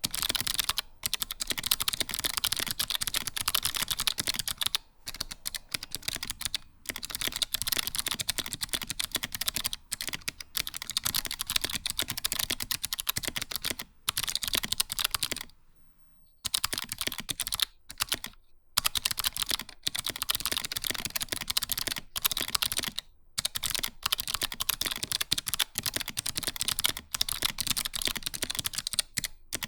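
Fast, continuous typing on a mechanical keyboard with SMK second-generation white clicky switches in a solid aluminium case, each keystroke giving a crisp double click. The typing breaks off for a few short pauses, the longest about sixteen seconds in.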